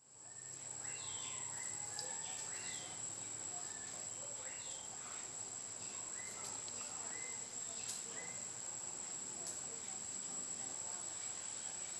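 Tropical forest ambience fading in: a steady, high-pitched insect drone, with scattered short bird chirps and whistles.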